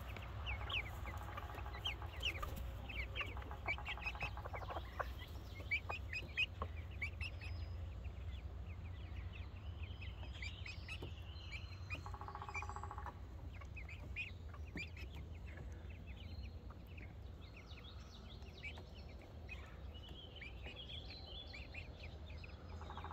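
Young chicks peeping and cheeping: short, high-pitched calls repeated on and off throughout, over a steady low hum.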